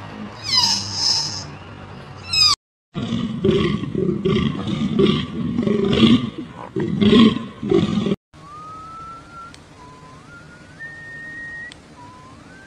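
An animal roaring: about five seconds of loud, rough, pulsing calls, then a thin whistle that rises in steps. The roaring is cut in between short breaks of silence.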